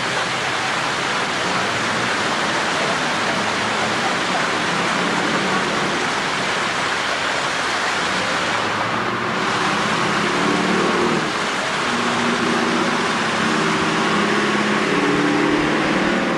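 Fountain jets splashing: a steady rushing hiss of falling water. About ten seconds in, a low engine hum from road traffic joins it.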